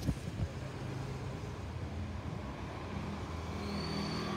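Airbus A320neo's CFM LEAP-1A turbofan engines heard from the ground as a steady, distant jet rumble with a low hum as the airliner passes overhead. Two light knocks near the start.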